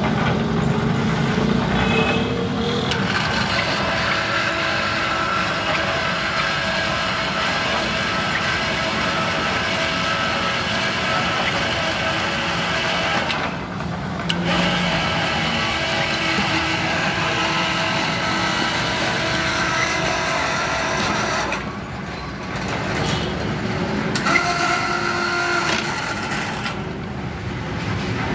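Construction hoist (monkey lift) motor running steadily with a whine while it hauls a loaded wheelbarrow pan of fresh concrete up to the second floor. The sound drops briefly twice.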